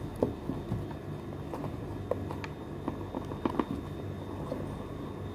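Hands working at the lid of a cardboard box to open it: scattered small taps, clicks and scrapes of fingers on the card, over a steady low hum.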